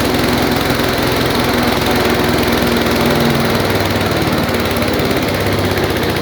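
Chicken-feather grinding machine running, a loud steady mechanical drone of its motor and grinder.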